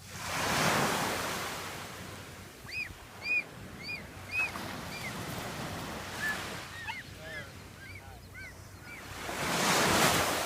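Surf washing onto the beach, with one wave surging in about a second in and another near the end. Between them comes a run of short, high, arched calls from birds.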